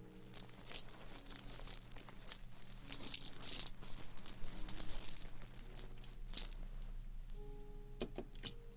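Close-up crinkling and rustling of something handled near the microphone, an ASMR trigger sound, dense for about six seconds and then dying down to a few soft clicks. Faint steady background tones run underneath.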